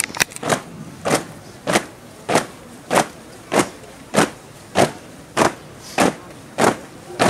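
A troop of flag bearers marching in step on asphalt, their shoes striking the road together in a steady beat of about one and a half steps a second.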